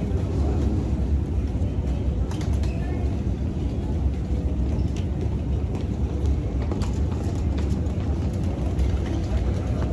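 Steady low rumble of an airport terminal's arrival hall, with a few faint clicks from footsteps and luggage on the tiled floor.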